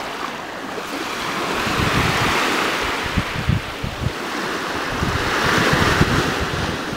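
Small waves breaking and washing up a sandy beach, the surf's hiss swelling twice as each wave comes in, with wind buffeting the microphone.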